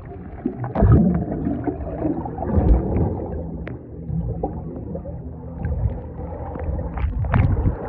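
Muffled underwater sound from a phone's microphone held under the water of a pool: water bubbling and sloshing around it, with a few dull low thumps.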